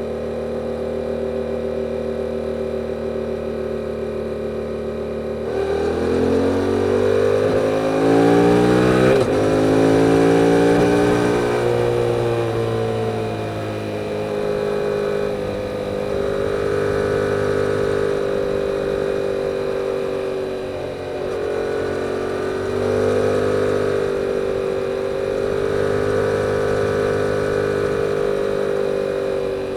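The 2022 Yamaha R7's parallel-twin engine through its stock exhaust, running at a steady note for about five seconds. It then opens up and accelerates, the pitch climbing, dropping briefly around nine seconds as it shifts, and climbing again. After that it settles into steady cruising with small rises and falls in revs.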